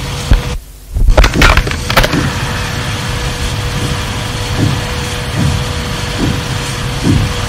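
Background noise of an old voice recording in a pause between words: a steady hiss with a thin hum tone. The sound drops out briefly about half a second in, and a few clicks follow.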